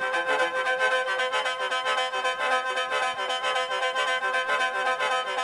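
Instrumental mor lam music: a khaen, the bamboo free-reed mouth organ, playing a quick melody over its own steady drone.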